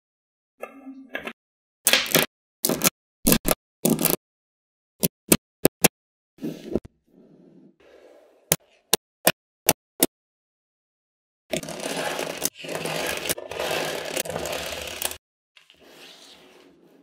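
Small magnetic balls clicking sharply as they snap together, one at a time and in quick groups. About twelve seconds in, a few seconds of louder rattling and scraping as many balls slide and clatter against each other.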